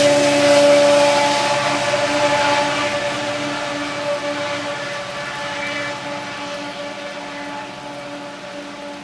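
Two GE wide-cab ('thundercab') diesel locomotives working at notch 8, full throttle, as distributed-power units, their engines droning with a steady whine and fading steadily as they pull away.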